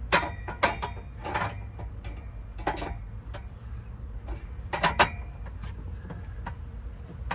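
Metal clinks and clacks as a bed-frame bracket is worked into the slots of a steel E-track rail. It is an irregular run of sharp strikes with short ringing, the loudest about five seconds in.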